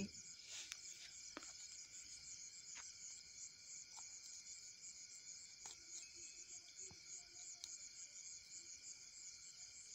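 Faint steady chirring of crickets, with a few soft clicks as fingers pick at the firecracker's small paper case.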